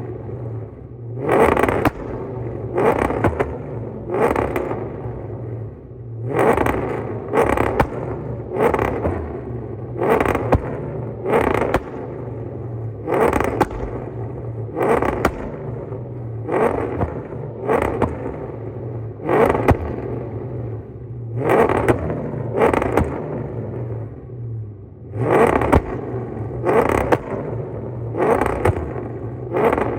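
Cammed Ford Crown Victoria's 4.6-litre V8 running, with repeated sharp bursts of revving and exhaust pops about every second or so over its steady low engine note.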